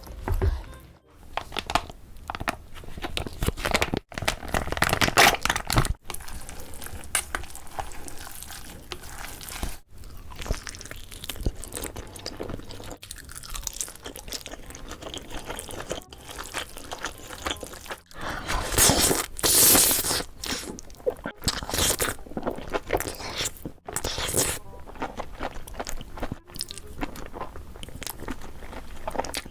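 Close-miked crunchy biting and chewing of food, an irregular run of crackling crunches, loudest around five seconds in and again around nineteen to twenty seconds in.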